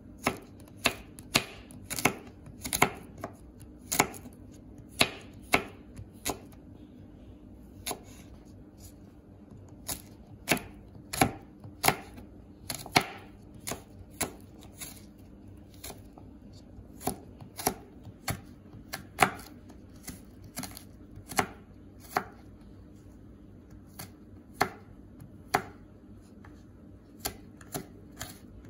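Chef's knife slicing garlic cloves on a plastic cutting board: sharp knocks of the blade striking the board, irregular, about one to two a second, with a few short pauses.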